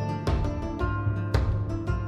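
Background music: an instrumental with repeated struck notes over a steady low bass.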